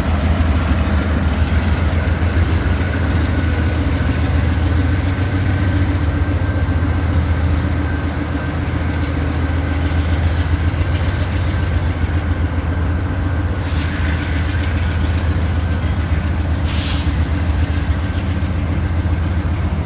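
Freight train rolling past: a steady, loud low rumble of wheels on the rails with a faint, steady high squeal. Two brief hisses come late on, about three seconds apart.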